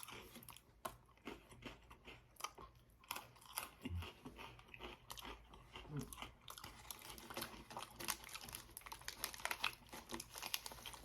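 Chewing and crunching of chocolate-covered Pocky biscuit sticks, a run of many small, irregular crisp crunches.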